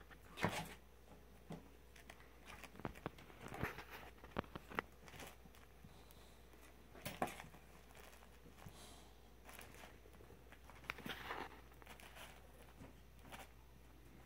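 Kittens scuffling and climbing inside a wire crate, making faint scattered rustles, scratches and light clicks on the bedding, cardboard box and wire. The sharpest clicks come about half a second in and about seven seconds in.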